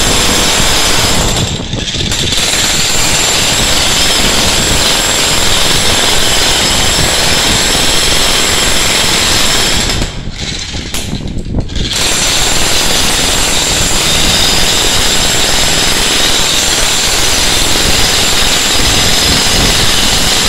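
Ryu (Tekiro) RDH 50 electric demolition hammer chiseling into a concrete floor slab, hammering continuously. It lets up briefly about two seconds in and again for about two seconds around ten seconds in.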